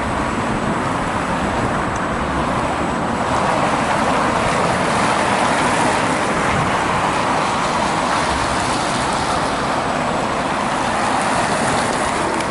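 Steady rushing road and wind noise while riding an electric unicycle, swelling a little in the middle and again near the end.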